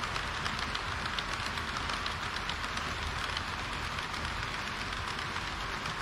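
HO-scale model trains running past on sectional track: a steady rolling rush of metal wheels on rail with faint, irregular clicks from the rail joints.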